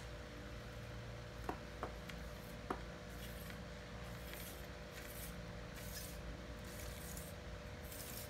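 Fishing rods being handled: three light clicks as the rods knock together in the first few seconds, then soft rubbing and sliding sounds as a rod is moved.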